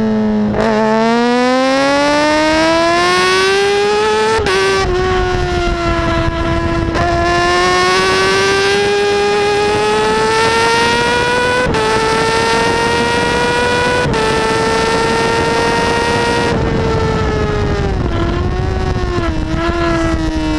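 Kawasaki ZX6R's inline-four engine pulling hard out of a corner, revs climbing steeply and then broken by quick upshifts about 4 and 7 seconds in, then held at high revs down a straight with wind rushing past. Near the end the throttle closes and the revs fall in small steps as the rider brakes and downshifts.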